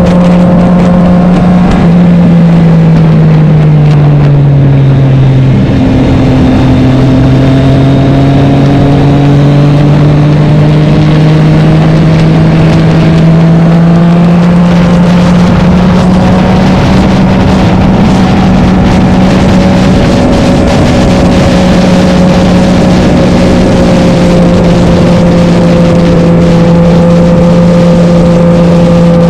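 Vintage racing motorcycle engine running hard and loud, with one steady engine note. The revs drop a few seconds in, climb slowly back over the next ten seconds, then hold steady.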